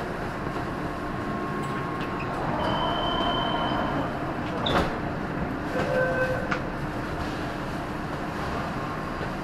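Subway train running, heard from inside the passenger car: a steady rumble of wheels and motors, with a short high tone a few seconds in and a few light clicks around the middle.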